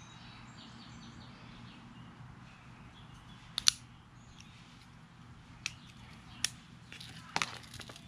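Folding pocket knife's blade flicked open, locking with a sharp double click a little after a third of the way in, followed by a few lighter clicks as the knife is handled and folded.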